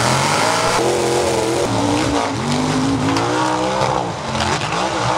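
Off-road truck engines revving hard, their pitch rising and falling again and again, more than one engine at a time.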